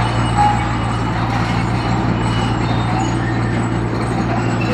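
Heavy earthmoving machine's diesel engine running steadily with a strong low hum, with a few faint high squeals on top.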